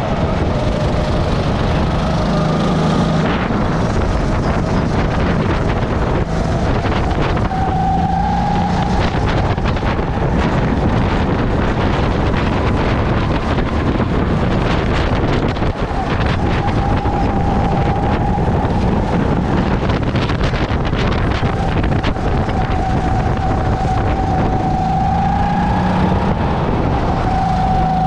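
Racing kart engine running hard on track, its pitch dipping and rising with speed through the corners, under heavy wind noise on the microphone.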